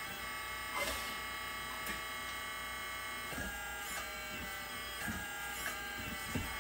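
Hydraulic pump of a 1/14-scale Kabolite K988 RC wheel loader whining steadily while the bucket and lift arms are worked, with several short clicks and knocks from the moving parts.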